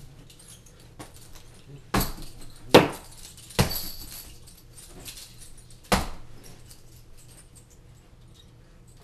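Metal chain clanking: four sharp metallic hits about a second or two apart, the third leaving a brief high ringing.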